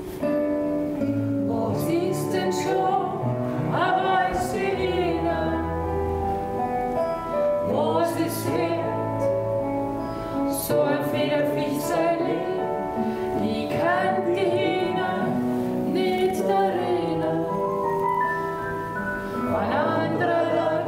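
A man and a woman singing a song together as a duet, with held, wavering notes over an instrumental accompaniment.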